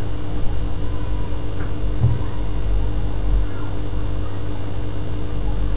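Steady low electrical hum with a faint hiss, the background noise of the narrator's microphone between spoken steps.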